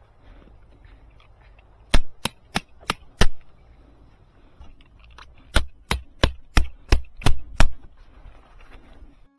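A hammer driving tent pegs into the ground to pitch a tarp: four sharp strikes, a pause, then seven more at about three a second.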